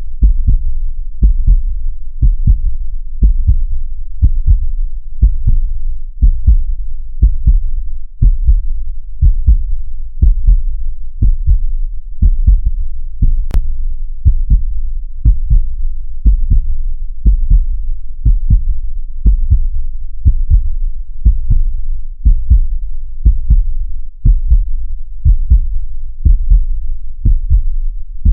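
Heartbeat: low thumps repeating in a steady, even rhythm.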